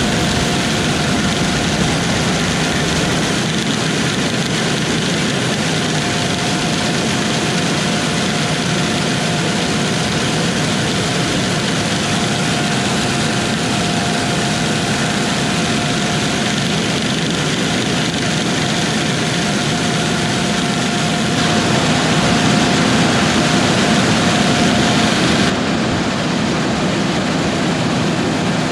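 Heavy harvest machinery running steadily, with a thin steady whine over the engine and machine noise. The sound changes abruptly a few times, most clearly twice near the end.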